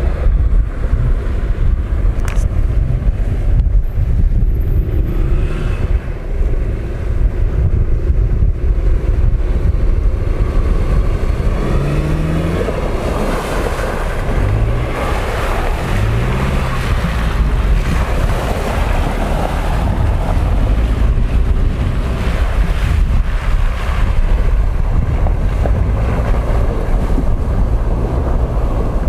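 An SUV's engine revving in short rising pulses as it drives through slushy meltwater and broken ice, splashing, loudest around the middle. Wind buffets the microphone throughout.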